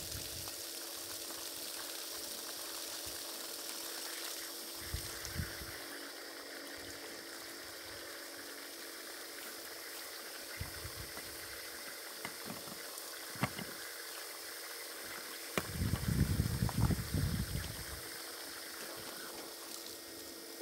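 Electric well pump with a deep-well jet (ejector) on a borehole, running with a steady hum while water flows. A low rumble comes in about sixteen seconds in and lasts a couple of seconds.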